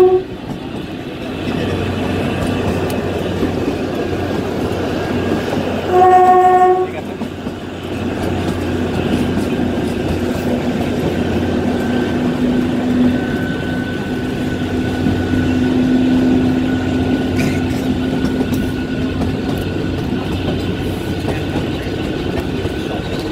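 Kalka–Shimla narrow-gauge train running, with a steady drone and the clatter of its wheels on the rails. Its horn sounds briefly right at the start and again for under a second about six seconds in.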